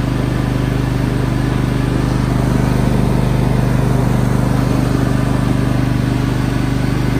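Sears Craftsman riding lawn mower engine running steadily at a constant speed as the mower is driven, heard close up from on board.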